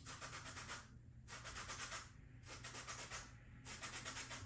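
Lemon rind being grated for zest: four rasping scrapes of about a second each, with short pauses between them.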